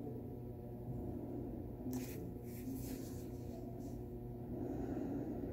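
Hands working on a leg cast: a few short rustling, scratching strokes about two seconds in and a softer rubbing near the end, over a steady low room hum.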